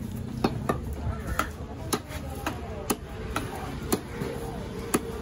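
Large knife chopping a red snapper fillet into steaks on a wooden log block: a run of sharp chops, about two a second, each blade strike hitting through the fish into the wood.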